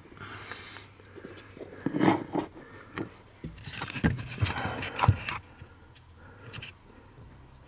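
Hard plastic scraping, rustling and a few sharp clicks as a car's accelerator pedal unit is worked loose from its floor mount by hand.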